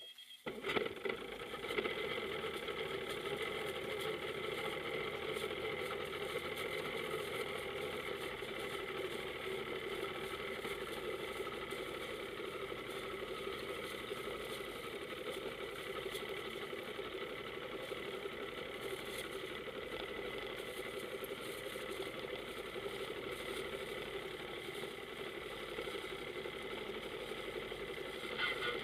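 Powerboat engine idling steadily, coming in abruptly about half a second in.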